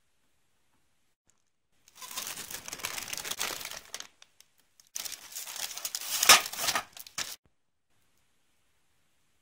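Plastic wrap crinkling in two bouts as trays of frozen gyoza are handled, with a sharp knock about six seconds in.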